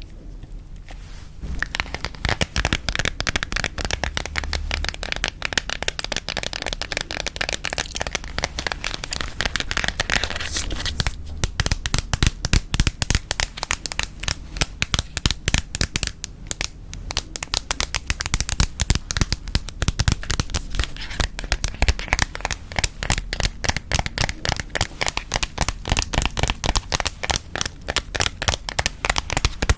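Close-miked gum chewing mixed with tapping on objects: a rapid, dense stream of small sticky clicks and crackles that starts about a second and a half in.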